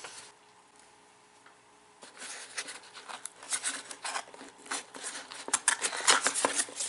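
Packaging being unwrapped by hand, a quick run of crinkling, rustling and sharp crackles, as a small plate is taken out of its wrapping. It starts after about two seconds of near quiet and is busiest about six seconds in.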